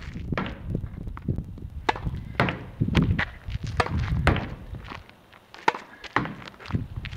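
A tennis ball hit hard back and forth against a practice wall: sharp racket strikes, the ball smacking off the wall and bouncing on the hard court, about once a second, over a low rumble.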